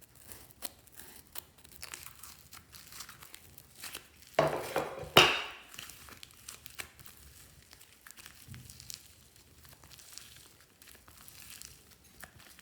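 Crinkling and crackling handling sounds in slime being worked by hand, with many small clicks throughout and a louder burst of crackling about four to five seconds in.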